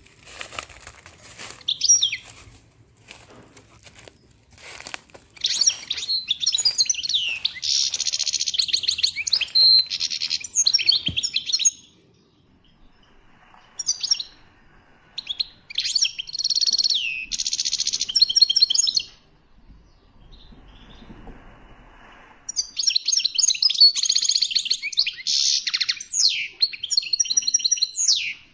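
A songbird singing long, rapid phrases of high chirps and trills in three bouts with short pauses between. A scatter of sharp clicks comes in the first few seconds.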